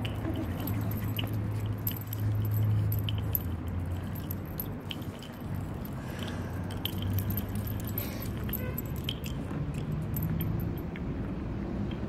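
A small dog playing with a plastic bottle cap on concrete: scattered light clicks and taps as the cap is pushed, mouthed and skitters, over a steady low hum.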